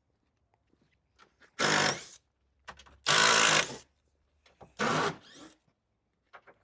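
Three short bursts of a handheld power tool running, a second or so apart; the middle one is the longest and loudest.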